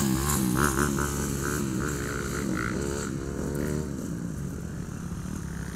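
Motocross bike engine revving, its pitch rising and falling again and again, then settling into a steadier low hum about four seconds in.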